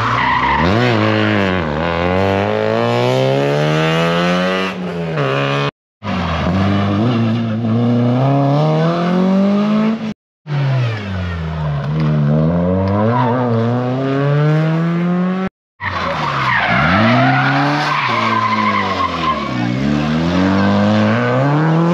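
Rally car engines revving hard, the pitch climbing and dropping again and again through gear changes and lifts. The sound is broken by three brief gaps of total silence.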